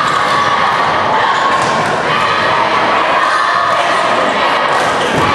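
Basketball dribbled on a hardwood gym floor, its bounces thudding over steady crowd noise in a large gymnasium.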